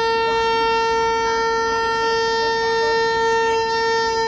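WAP-7 electric locomotive horn giving a long departure blast on one steady pitch, cutting off suddenly at the very end.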